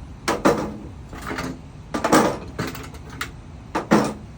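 Screwdrivers clattering as they are put into a toolbox, about six separate knocks and rattles over four seconds.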